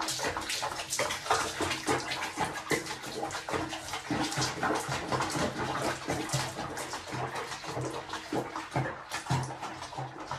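Water sloshing and splashing in a plastic basin with a cat sitting in it, in many small irregular splashes.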